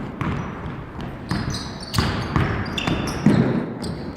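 Basketball game play: a ball bouncing on the court with repeated knocks, and short high sneaker squeaks a few times.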